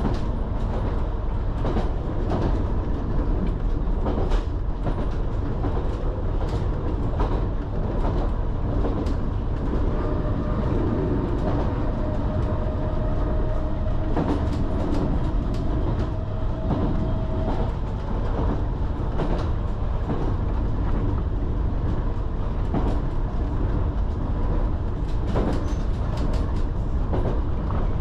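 Island Line Class 484 electric train running along the track, heard from on board: a steady rumble of wheels on rail with scattered clicks over the joints. A steady whine joins in about a third of the way through and stops suddenly after several seconds.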